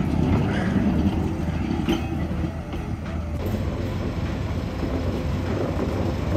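Slow freight train passing at a crawl, a locomotive hauling the heavy Shiki transformer wagon, with a steady low engine hum and the noise of wheels rolling on the rails.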